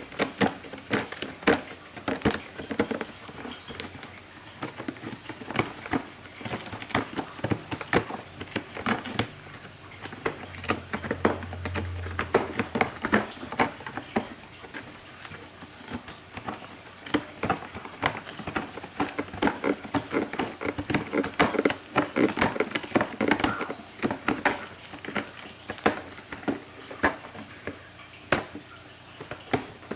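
A cat rummaging with its head in a cardboard box of cat goods: a busy run of irregular rustling, crinkling and small clicks.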